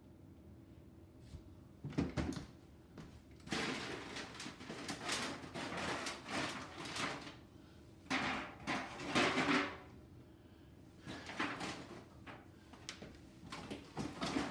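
Kitchen handling noise: irregular knocks, clatter and rustling of cookware and cupboards being moved, in three bursts after a quiet start.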